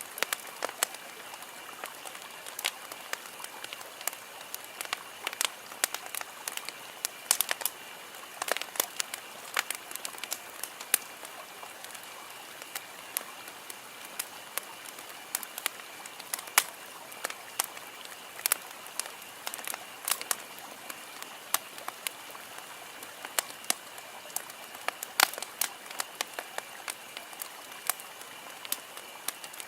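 Wood campfire crackling: sharp, irregular pops and snaps over a soft steady hiss.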